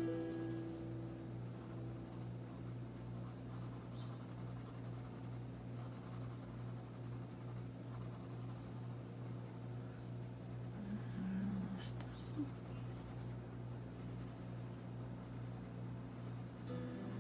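Coloured pencil scratching across paper in runs of quick back-and-forth shading strokes with short pauses, laying down a smooth base colour.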